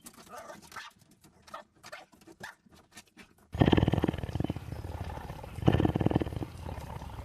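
Faint scattered sounds, then about three and a half seconds in a pet animal starts a loud, low rumbling vocalisation that swells about every two seconds.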